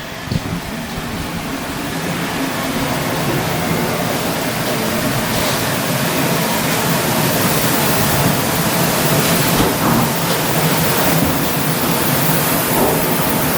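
Steady machinery noise: a loud even rush with a low hum underneath, swelling over the first few seconds and then holding.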